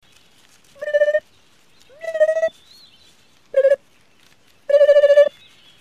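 Four short, high-pitched warbling noises from the cartoon unicorns' voices, each held on one wobbling note, with pauses between; the last is the longest.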